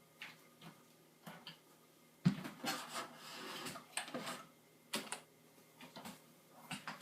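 Scattered light clicks and knocks of handling, with one louder knock a little over two seconds in and a brief rubbing sound about a second later.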